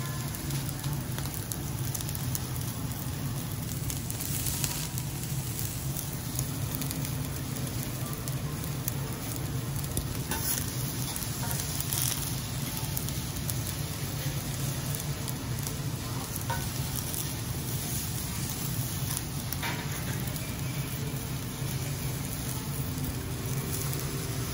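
Fried rice with beef sizzling steadily on a hot steel teppanyaki griddle, with metal spatulas scraping and tapping on the plate now and then as the rice is turned and scooped.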